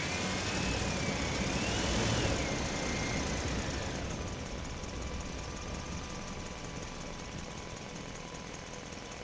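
Heavy truck engine idling steadily, with a thin whine that rises and falls in pitch over the first three seconds and then fades away.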